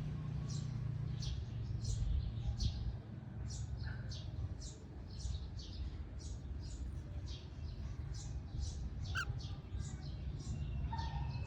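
Cockatiels chirping: a long run of short, high chirps at about two a second, over a steady low rumble.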